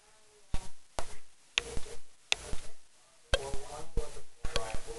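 A run of sharp, irregularly spaced clicks or smacks, about a dozen, with short faint pitched sounds between some of them.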